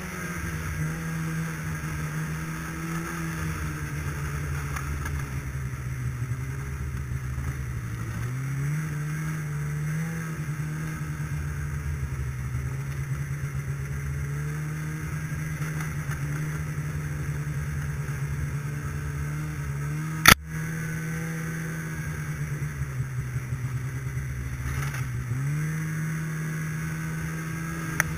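Snowmobile engine running under way, its pitch climbing three times as the throttle is opened. A single sharp knock about twenty seconds in.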